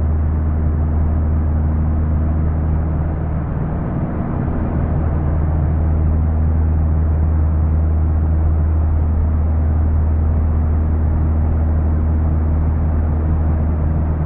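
An engine or motor running steadily with a loud, unchanging low hum.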